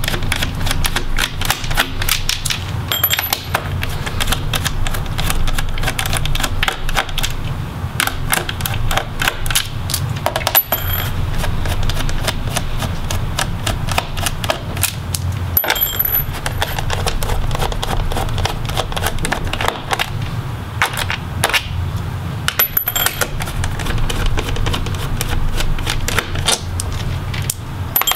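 Small Phillips screwdriver backing out the screws of a laptop's plastic bottom cover: quick irregular clicks and scrapes of the bit in the screw heads. A short metallic ting comes about every six seconds, over a steady low hum.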